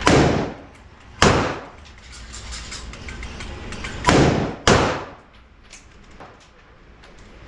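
Four gunshots with a ringing echo after each: two about a second apart, then two more about half a second apart a few seconds later.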